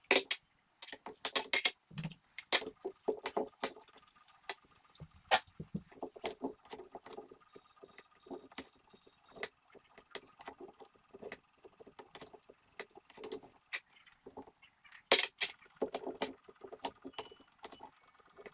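Kitchen work clatter: irregular knocks, taps and clinks of utensils and glass canning jars being handled while cucumbers are prepared and packed for pickles. The sharpest clatter comes about a second in and again about fifteen seconds in.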